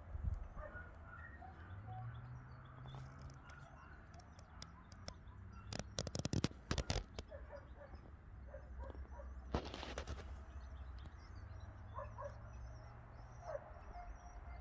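Small birds chirping here and there, with a cluster of sharp clicks about six seconds in and a brief rustle near ten seconds, over a low steady rumble.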